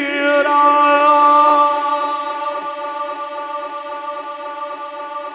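A man's voice chanting the Quranic words 'wa nadhira' (Surah Al-Ahzab 33:45) in melodic recitation, then holding the last note as one long steady tone that slowly fades.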